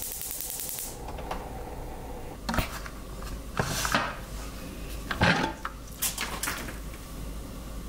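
An aluminium pressure cooker being opened: a hiss that stops about a second in, then several metallic clanks and scrapes as the lid is turned, unlocked and lifted off the pot.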